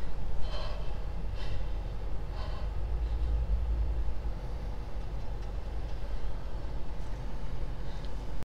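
A deep, steady low rumble heard inside a car's cabin, with a few faint higher sounds in the first few seconds.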